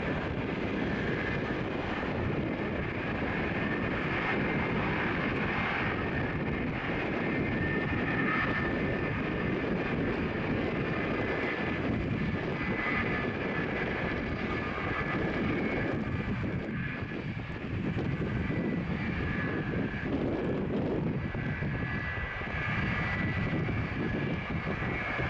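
Jet airliner engines running steadily, a steady high whine over a broad low rumble.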